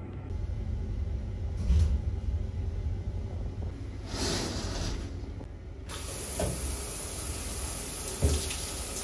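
Handheld shower head switched on about six seconds in, spraying water with a steady hiss onto a hand, over a low steady hum from the ship. Before that comes a brief rustle of the shower curtain, with a few light knocks.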